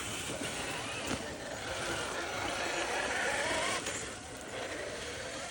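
Electric motor and gear drivetrain of an RC crawler truck whining under throttle, the pitch climbing slightly before it cuts off about four seconds in.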